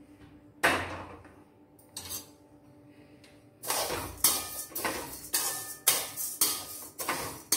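Perforated steel spoon stirring and scraping dry rice grains around a steel kadhai, in quick repeated strokes of about two to three a second from about halfway in, as the rice is dry-roasted. A single sharp knock comes less than a second in.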